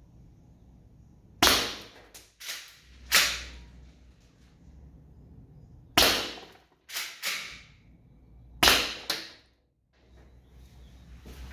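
Umarex HDX .68-calibre less-lethal gun firing aluminum balls into a rutabaga: four sharp cracking shots a couple of seconds apart, with smaller clacks after some of them.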